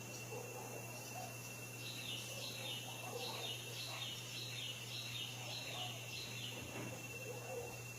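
A bird singing a run of about ten short, falling, high notes, roughly two a second, starting about two seconds in and stopping near the end. A steady high tone and a low hum sit underneath.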